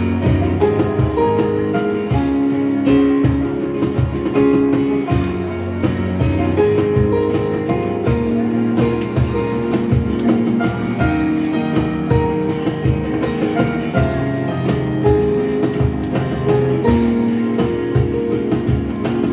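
Live band playing an instrumental passage: guitar and keyboard notes over a steady drum-kit beat.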